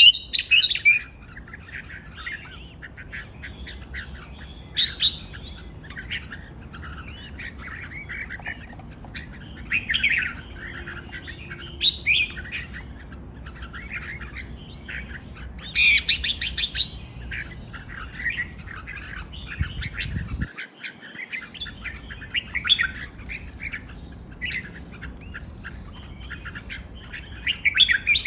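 Caged red-whiskered bulbuls singing: short, chirpy phrases keep coming, with louder bursts of song about 16 seconds in and again near the end.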